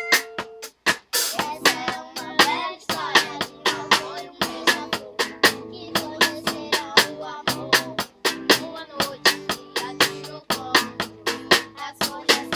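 Band music: a quick, steady percussion beat over bass notes and keyboard chords.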